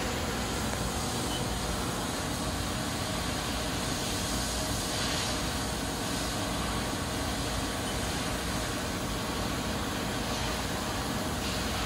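Steady machine-shop din: an even hum and hiss of running machinery and ventilation, slightly brighter about five seconds in.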